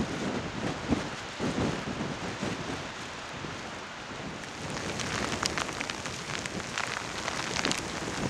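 Wind and rain: gusty wind on the microphone over a steady rain hiss, with a flurry of sharp raindrop ticks starting about halfway through.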